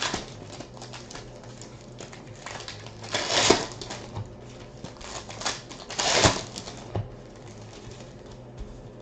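Trading card pack wrappers being torn open: two loud rips about three seconds apart, among the steady clicking and rustling of cards being handled.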